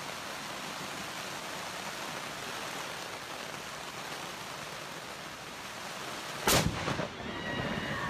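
Steady hiss of a storm's wind and rain, with one loud sudden crack about six and a half seconds in.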